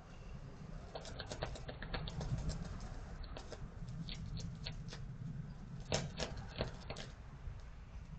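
Irregular light clicks and taps in short clusters, loudest about six seconds in, over a steady low rumble.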